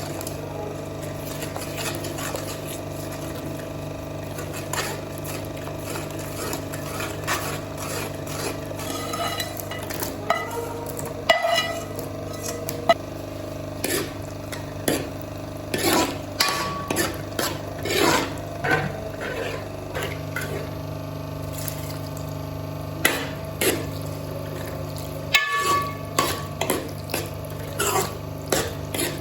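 A spoon stirring and scraping in a cooking pan, with irregular clinks and knocks that become more frequent and louder from about ten seconds in, over a steady low hum.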